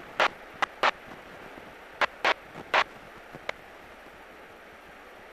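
Steady faint hiss of a light aircraft's cockpit intercom and radio audio, broken by about seven short sharp clicks in the first three and a half seconds.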